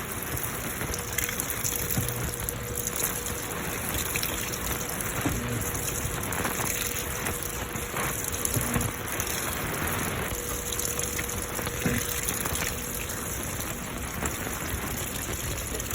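Midea 13 kg washing machine filling with water, a steady gush of water pouring into the drum with the lid open.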